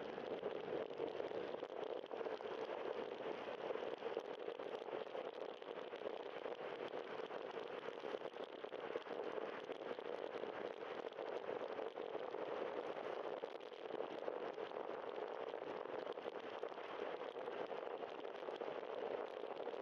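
Steady wind and road noise picked up by a bicycle-mounted camera while riding: air rush over the camera and bicycle tyres hissing on wet pavement.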